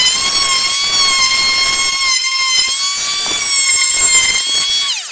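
WORX oscillating multi-tool running at a steady high pitch as its blade trims a hinge recess in the wooden edge of a door. Near the end it is switched off and its pitch falls as it winds down.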